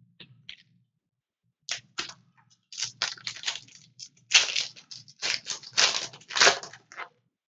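Foil wrapper of a 2015 Panini Prizm football card pack torn open and crinkled by hand: irregular crackling rustles, starting about two seconds in and loudest in the second half.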